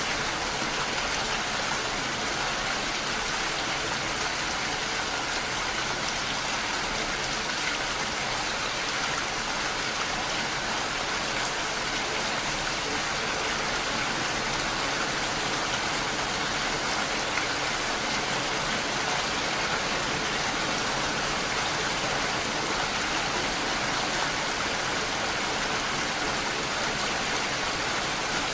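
Steady rain falling, an even hiss without breaks or single standout drops.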